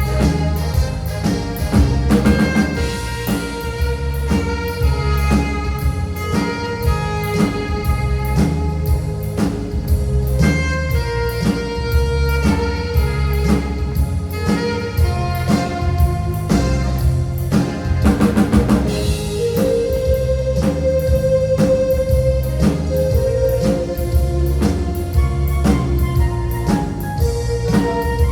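Live band instrumental: an alto saxophone playing a melody of held notes over keyboard and a drum kit keeping a steady beat.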